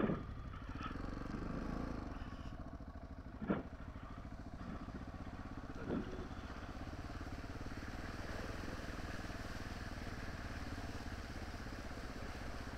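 Adventure motorcycle's engine running at low, steady revs as the bike rides slowly through shallow floodwater over a concrete causeway, with a brief knock about three and a half seconds in.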